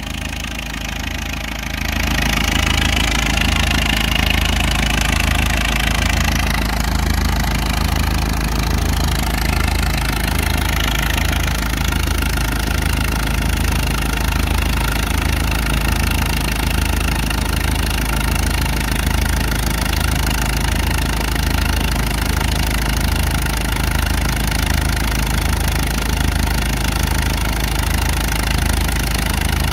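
Case CC tractor's four-cylinder engine running steadily with a regular low beat while it drives a belt-driven brake fan through its flat belt. It gets louder about two seconds in as it takes up the load.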